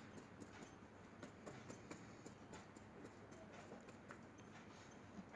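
Faint, irregular soft taps of a watercolour brush being dabbed onto drawing paper; otherwise near silence.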